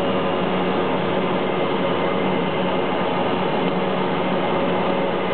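A Cessna Conquest's twin turboprop engines running steadily at low power while taxiing, heard inside the cockpit as an even hum with a few held tones.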